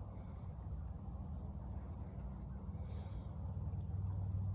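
Steady high-pitched insect drone, like crickets, over a constant low rumble that grows slightly louder near the end.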